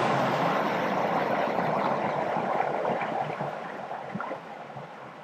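Clear mountain creek rushing and gurgling over rock slabs, with a small cascade upstream; the water sound grows noticeably quieter about four seconds in.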